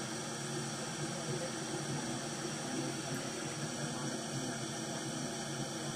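Steady hiss with a faint, even hum underneath.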